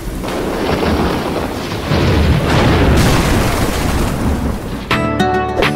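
Thunderstorm: a steady hiss of rain under a heavy, continuous rumble of thunder. About five seconds in, plucked guitar music begins over it.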